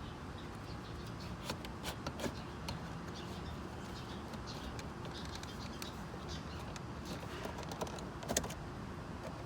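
Scattered light clicks and taps of a plastic dashboard trim bezel being handled and worked into place around the gauge cluster, with a sharper tap a little after eight seconds, over a steady low background hum.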